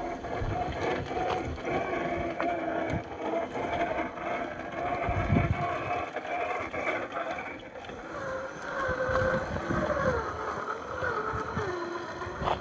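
Radio-controlled scale crawler driving off-road: the electric motor and gear drivetrain whine, rising and falling in pitch with the throttle in the second half, over irregular knocks and crunches from the tyres and chassis on the trail, with a heavier thump about five seconds in.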